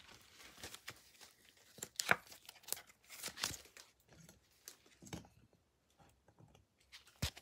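Faint crinkling and light plastic clicks as a trading card in a rigid clear holder and plastic sleeve is handled with nitrile-gloved hands and set on a display stand.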